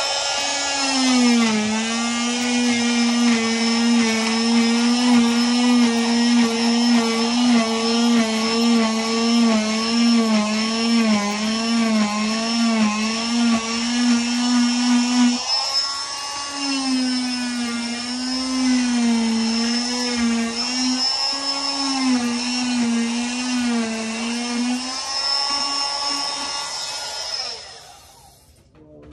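Electric oscillating cast saw cutting through a fiberglass leg cast: a steady, high motor whine that wavers in pitch as the blade is pressed into the cast. It cuts out briefly about halfway through, then runs again and stops shortly before the end.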